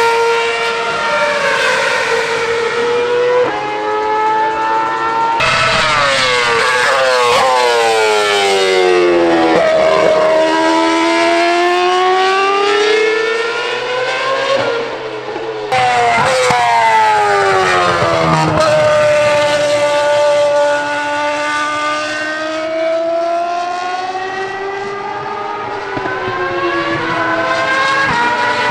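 Naturally aspirated 2.4-litre V8 engines of Ferrari Formula 1 cars running at high revs as the cars pass, the pitch climbing and then sweeping down with each gear change and pass. There are several passes in a row.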